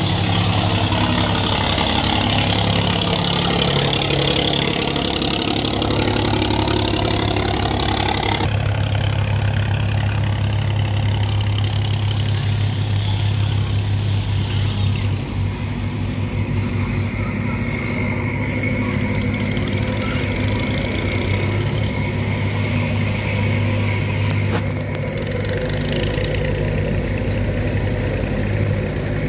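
Boat engines running steadily as wooden cargo boats drive through at speed, a steady low drone. For the first several seconds water rushes and churns loudly in the wake, then that stops abruptly.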